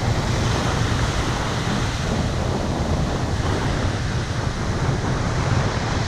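Ocean surf breaking steadily on the beach, with wind buffeting the microphone in a low rumble.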